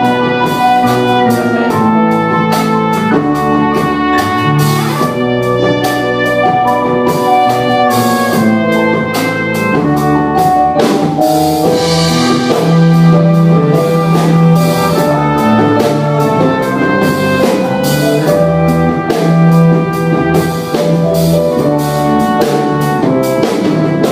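Instrumental break of a pop song: a brass-led melody over a drum kit and bass, with no vocals.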